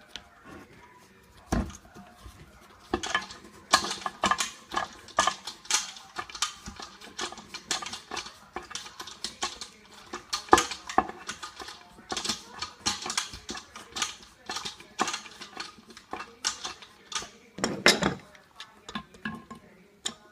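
Plastic toilet-tank parts being handled and fitted into a porcelain tank: a scattered run of small clicks, knocks and scrapes as a new flush valve is seated and its plastic nut turned, with a louder knock near the start and another near the end.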